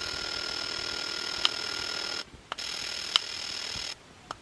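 Retekess V-115 portable radio's speaker giving a steady hiss with a high whistling tone, as heard between FM stations while tuning. Two sharp clicks come about a second and a half in and about three seconds in. The sound cuts out briefly just after two seconds and drops away near four seconds as the radio retunes.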